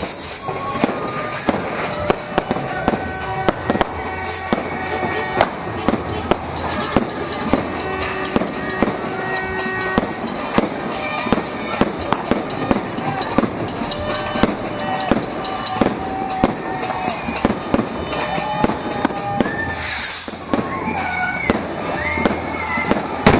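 Street fireworks going off nonstop: a dense run of firecracker pops and cracks mixed with the crackle of ground fountain fireworks spraying sparks. Music and voices play behind it.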